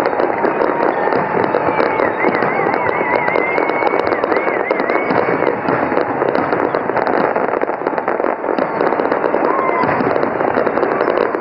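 Fireworks display: a ground fountain firework hissing and crackling steadily, with small aerial bursts adding dense popping crackle. About two seconds in, a wavering high whistle sounds for a few seconds.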